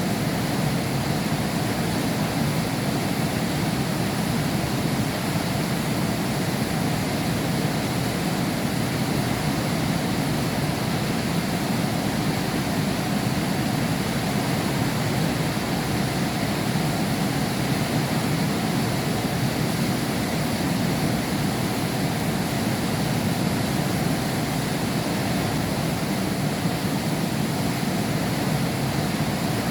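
Heavy rain falling steadily, heard from behind window glass, as an even, unbroken rush that is heaviest in the low range.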